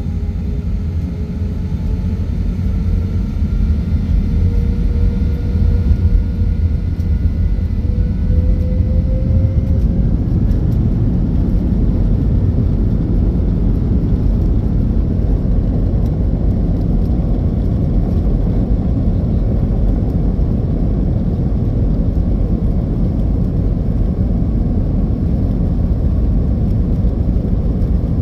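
Airliner jet engine noise heard inside the cabin: a whine that rises in pitch over the first ten seconds or so, over a loud, steady low rumble that grows and then holds.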